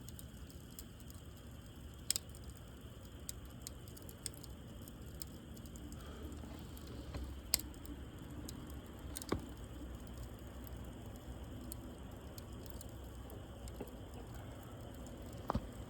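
Wood fire crackling: scattered sharp pops and ticks, a few much louder than the rest, over a low steady rumble.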